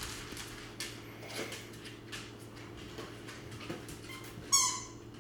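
A dog gives one short, high whine about four and a half seconds in, after a few faint scuffs and clicks, over a steady low hum.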